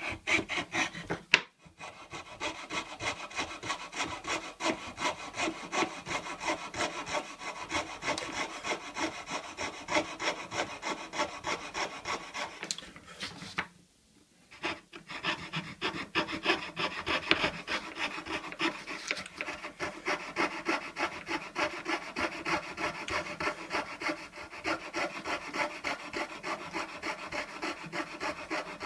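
Hand fretsaw cutting through a thin board with quick, steady rasping strokes, about four a second. The sawing breaks off for about a second halfway through, then carries on.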